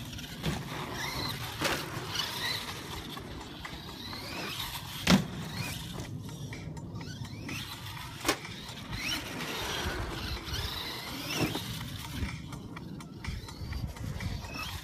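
Traxxas Stampede 4x4 VXL RC monster truck driving, its brushless motor whining up and down in pitch with the throttle. Sharp thumps as it lands off jumps, the loudest about five seconds in and another a little after eight seconds.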